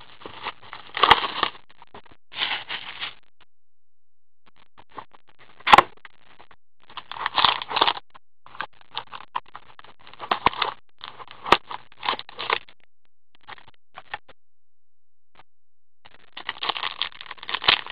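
Plastic wrapping and a cardboard card box being torn open and handled: irregular crinkling and scraping with three sharp snaps, about 1, 6 and 11 seconds in.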